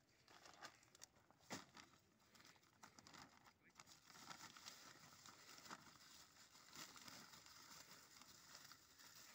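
Near silence with faint crinkling and rustling of a plastic bag of charcoal being opened and handled, and a few soft clicks.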